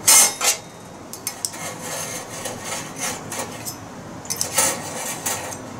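Metal tongs clanking and scraping against thin iron mini griddle plates on a wire rack, with sharp clanks right at the start and again about four and a half seconds in.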